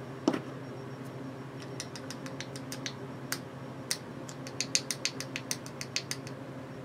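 Irregular light clicks and taps of a small plastic cosmetic lid being handled and tapped while trying to get product out of it, sparse at first and coming thicker after about two seconds.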